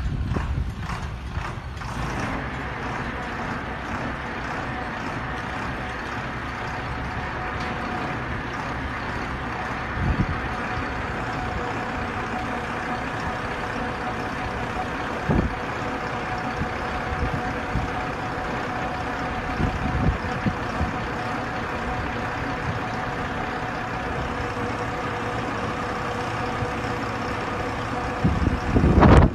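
Diesel engine of a truck-mounted drilling rig running steadily, with a steady whine over it, as the rig's hydraulics lower the mast. A few single knocks come along the way, and there is a louder clatter near the end.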